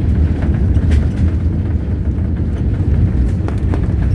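Airliner cabin noise during the landing rollout just after touchdown: a steady low rumble from the engines and the wheels on the runway, with a few faint clicks and rattles.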